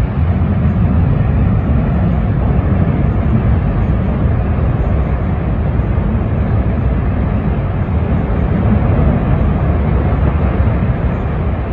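Strong wind buffeting the microphone, a steady low rumble that runs without a break.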